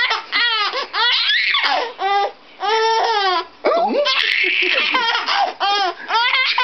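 Baby laughing hard in long runs of high-pitched belly laughs, each run made of quick, evenly spaced 'ha' pulses, with brief pauses for breath in between.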